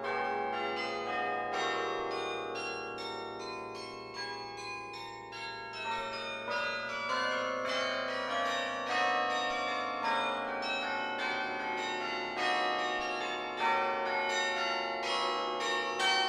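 The Laura Spelman Rockefeller Memorial Carillon being played from its baton clavier. Bell notes are struck several times a second and ring on over one another, with some louder strikes near the end.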